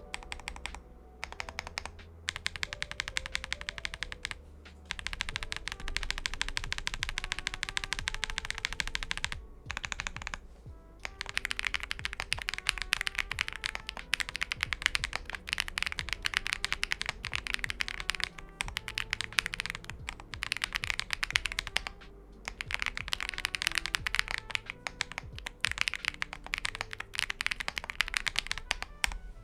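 Fast typing on a mechanical keyboard fitted with resin keycaps: rapid clacking keystrokes in long bursts with brief pauses between them. A quiet music bed plays underneath.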